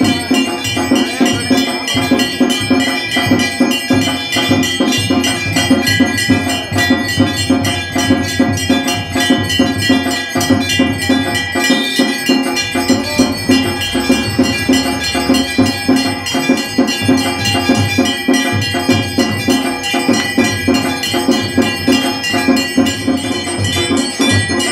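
Hanging temple bells rung rapidly and continuously, many overlapping strikes with lingering metallic ringing, over a steady low beat.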